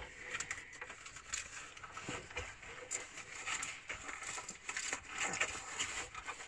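Rummaging while searching for a lighter: light rustling with many small, scattered clicks and knocks of objects being moved about.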